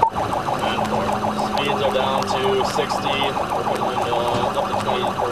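Police car siren sounding a rapid, repeating warble, heard from inside the pursuing cruiser.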